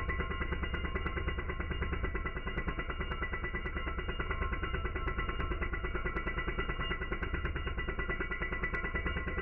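Power tool raking out brick mortar joints, slowed down for slow-motion playback. It is a deep, muffled drone of steady tones with a rapid, regular pulsing.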